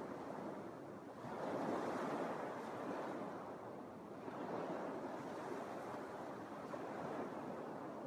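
Small Lake Michigan waves breaking and washing up a sand beach, a steady wash that swells with a new wave about a second in and again around four seconds in.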